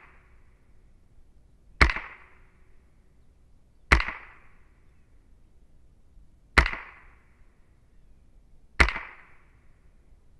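Smith & Wesson M&P 15-22 semi-automatic .22 LR rifle fired four single shots, about two seconds apart. Each is a sharp crack with a short echoing tail.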